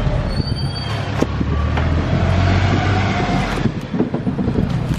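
A large knife chopping raw green mangoes on a wooden board, a few sharp knocks of the blade, over a loud steady low rumble. A brief high squeal sounds about half a second in.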